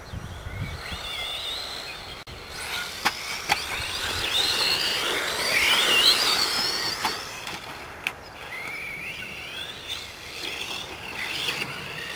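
Radio-controlled off-road cars racing on a dirt track, their motors giving a high whine that rises and falls as they speed up and slow down, loudest about halfway through. A few sharp clicks or knocks come in between, around three seconds in and again near eight seconds.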